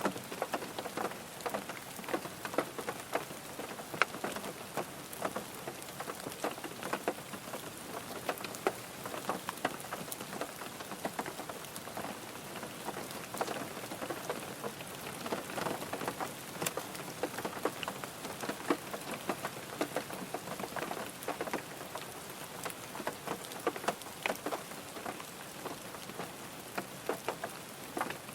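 Rain drumming on a car's roof and windows, heard from inside the car: a steady patter of many individual drops striking the bodywork and glass.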